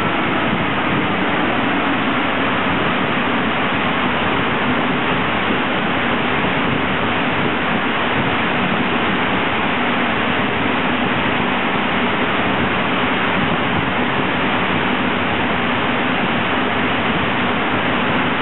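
Steady loud rushing from a rolling-road cell's large cooling fans, with a low steady hum underneath and no rise or fall in pitch.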